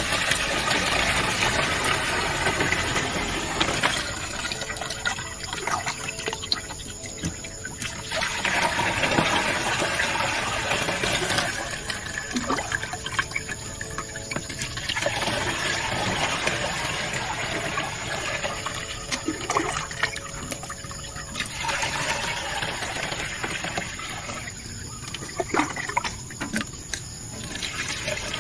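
Water poured from a plastic bucket into a knapsack sprayer's tank, splashing through the strainer in the filler opening. It comes in several pours of a few seconds each, with quieter gaps between them that hold clicks and knocks of the bucket.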